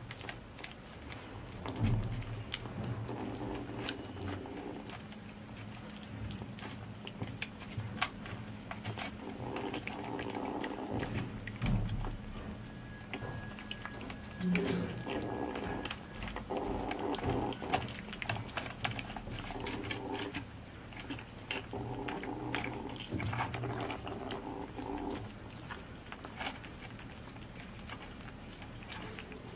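Kittens eating wet cat food from a plastic bowl: many quick chewing and smacking clicks, with a low rumble that comes and goes in stretches of two or three seconds.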